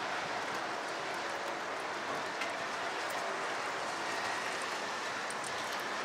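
Steady rain falling on trees and grass, an even hiss with scattered close drops ticking, over a faint distant city hum.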